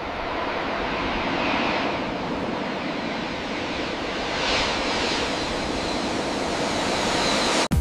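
Twin turbofan engines of a jet airliner at takeoff thrust on the runway: a loud, steady rushing noise that cuts off suddenly near the end.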